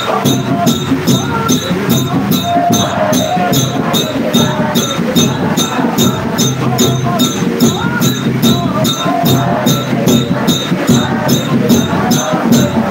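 A congregation singing a hymn, accompanied by a steady jingling percussion beat of about three strokes a second.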